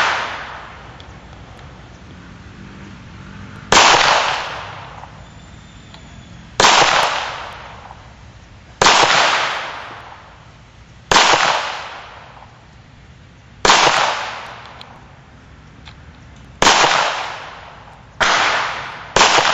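Gunshots fired singly at a target, eight in all, mostly two to three seconds apart, the last two about a second apart. Each is a sharp bang that trails off in a short echo.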